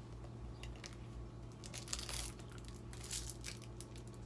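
Clear plastic wrapper crinkling and rustling in short clusters as a makeup fan brush is unwrapped, over a low steady hum.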